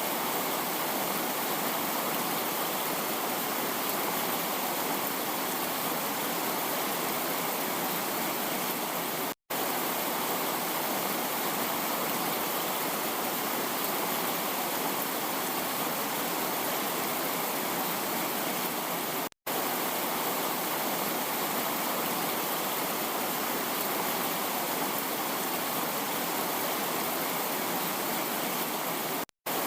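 Heavy rain falling, a dense steady hiss with no single drops standing out. It cuts out completely for a split second about every ten seconds, three times.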